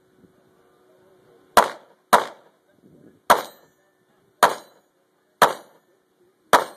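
Six pistol shots fired one at a time. The first two come about half a second apart, and the rest about one a second, each a sharp crack with a short decay.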